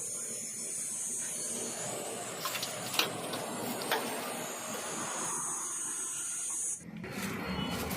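Steady high hiss of compressed air from an air tool in use, with a few sharp clicks; the hiss cuts off suddenly near the end.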